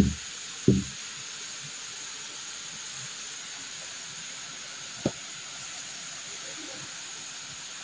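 Steady hiss, with a short vocal sound just under a second in and a single sharp tap about five seconds in.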